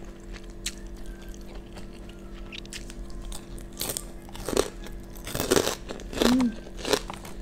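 Close-miked ASMR mouth sounds of a person chewing a mouthful of nasi padang. Soft clicks come at first, then louder, denser bite-and-chew sounds in the second half, the loudest a little after the middle.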